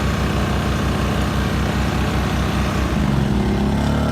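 Two small inverter generators running in parallel with an even low throb; the Briggs & Stratton is switched off and about three seconds in the Pulsar PG2000iS's engine speeds up with a rising note as it takes over the whole air-conditioner load, while the throb fades out near the end.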